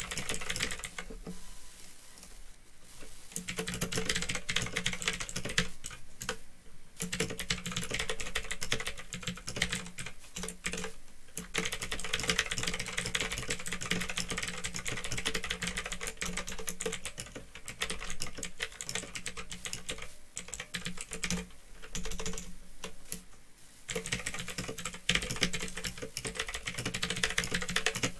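Fast, continuous typing on a Phantom Tecware 87 mechanical keyboard with clicky Otemu blue switches: a dense run of key clicks broken by a few brief pauses.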